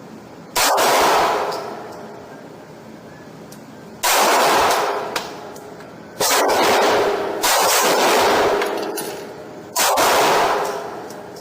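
Star Model BM 9mm single-action pistol firing Federal 115-grain ammunition: five shots at an uneven pace, about a second to three and a half seconds apart, each with a long ringing tail.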